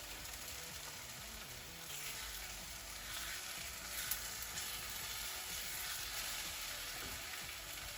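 Vegan omelette of plant-based liquid egg over vegetables sizzling in oil in a non-stick frying pan: a steady frying hiss, with one faint click about four seconds in.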